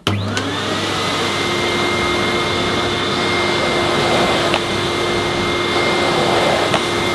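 Miele S228i cylinder vacuum cleaner switching on: its motor whine rises in pitch over about the first second, then runs steadily at full suction as the floor nozzle is pushed over carpet.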